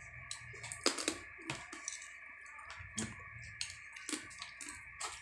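Metal spoons clicking and scraping against a clear plastic food tub as dessert is scooped out: a dozen or so irregular light clicks, the loudest about a second in.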